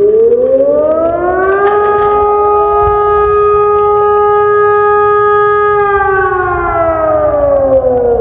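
Civil-defence-style siren wail: the tone winds up in pitch over about the first two seconds, holds steady, then winds down from about six seconds in.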